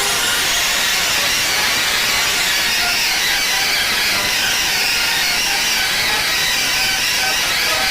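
Heavily processed, digitally distorted sound effect: a loud, steady hiss, mostly high in pitch, with faint broken tones buried in it.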